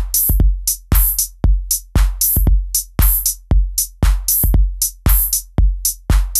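House drum groove playing back from Native Instruments Maschine at about 116 BPM: a deep four-on-the-floor kick about twice a second, with bright, crisp hits on the off-beats between the kicks.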